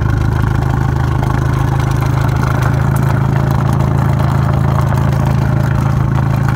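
Abarth 595 Competizione's turbocharged 1.4-litre four-cylinder idling steadily through its Record Monza exhaust, engine warm, with the exhaust valve which the owner believes is held stuck shut by an over-tight spring.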